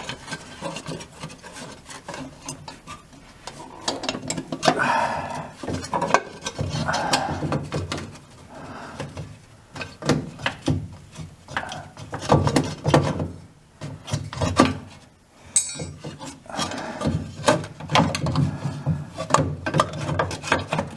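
Valve cover being worked loose from a tight spot on an air-cooled VW Beetle engine: irregular scraping, rubbing and knocking of metal as it is wiggled back and forth.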